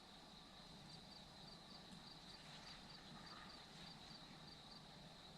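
Faint outdoor insect sound: a steady high buzz with a regular series of short high chirps, about three a second, which stop near the end.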